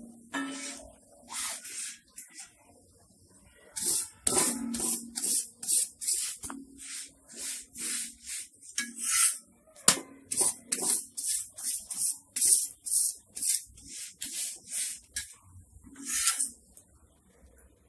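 Flat steel spatula rubbing and pressing a chapati against a cast-iron tawa in short rasping strokes, about two a second, after a pause of about two seconds near the start.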